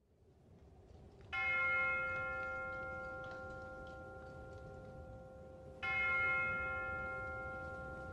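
A bell struck twice, about four and a half seconds apart; each stroke rings on with several clear tones and slowly fades.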